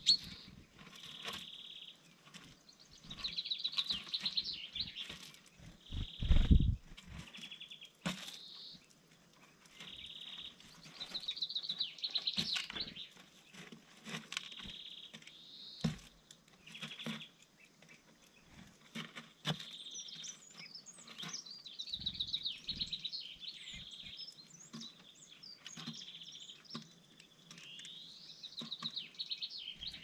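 Small songbirds singing and calling, with a trilling song phrase of a couple of seconds repeated every several seconds and shorter calls in between. Scattered light taps and a low thump about six and a half seconds in sound beneath the birdsong.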